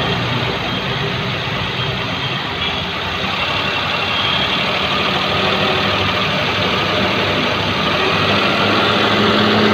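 Maruti Suzuki 800's three-cylinder petrol engine running at a light throttle with its alternator belt off, growing slowly louder toward the end. It carries the abnormal noise that comes in under light accelerator and that the mechanic traces to inside the timing side, not the belts or clutch.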